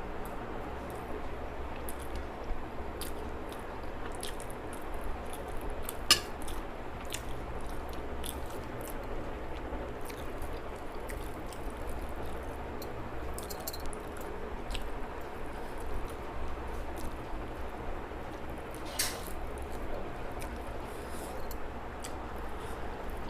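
A person eating: chewing with soft wet squishes, smacks and scattered small clicks, a sharper click about six seconds in and another near the end, over a steady background hum.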